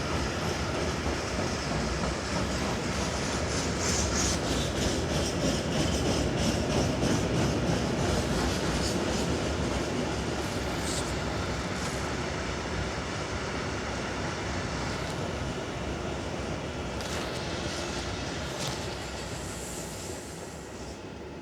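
Freight train of SŽ Eas open wagons rolling past, the wheels clicking rhythmically over the rail joints. The rumble is loudest in the middle and fades away over the second half.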